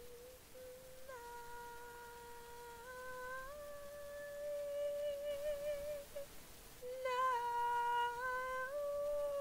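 A woman's solo voice singing long held notes, unaccompanied at the microphone, stepping up in pitch about three seconds in and again near the end. One note carries a vibrato, and there is a short breath break about two-thirds of the way through.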